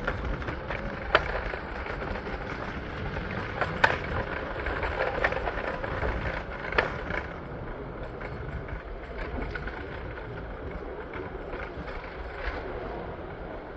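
Steady city street traffic noise with a low rumble, broken by a few sharp clacks about one, four and seven seconds in.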